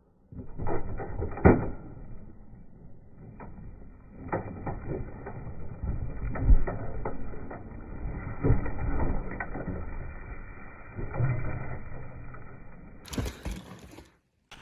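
Mountain bike rattling and thudding over a rough dirt trail: a steady rumble with many sharp knocks from the bumps, the loudest about a second and a half in and at about six and a half seconds. Near the end it gives way to a short, brighter burst of noise.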